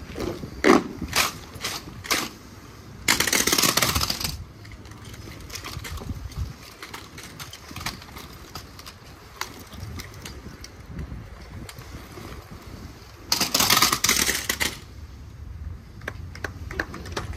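A drill team's boots and rifles striking cobblestones in several sharp stamps, then a sudden noisy rush about a second long. After a quieter stretch with faint scattered clicks, a second rush comes near the end.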